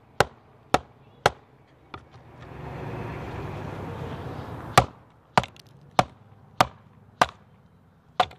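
A wooden baton knocks down on the spine of a TOPS El Chete, a quarter-inch-thick 1095 carbon-steel chopping blade, driving it down through a log to split it. The sharp knocks come about every half second in two runs, with a couple of seconds of rushing noise between them.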